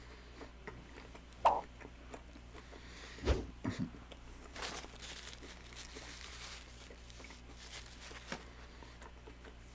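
Close-up eating sounds of a McRib sandwich being chewed, with a few sharp clicks and knocks about one and a half and three and a half seconds in, and a soft rustle a little after.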